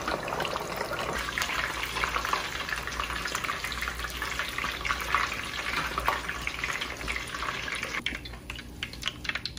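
Skin-on chicken thighs and drumsticks deep-frying in a stockpot of peanut oil at 350 °F, a steady dense sizzle and bubbling. About eight seconds in it thins to a few scattered light crackles.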